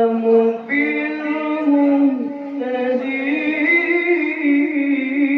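A man's voice reciting the Quran in melodic tilawah style, holding long notes that step up and down in pitch with short breaks between phrases.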